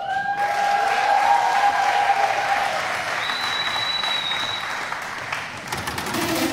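Studio audience applauding, with a voice calling out over the first two seconds and a brief high whistle about three seconds in.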